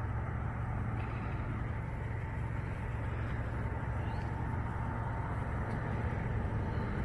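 A motor vehicle engine idling with a steady low hum.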